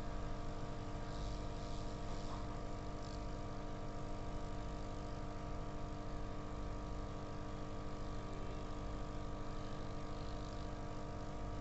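Hot-air rework blower running with a steady hum while it heats a mobile phone's display flex connector to loosen it.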